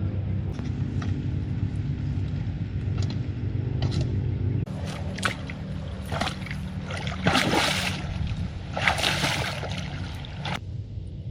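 A steady low engine-like drone for the first few seconds, then, after an abrupt change, water splashing and sloshing in a series of bursts, the loudest two just past the middle.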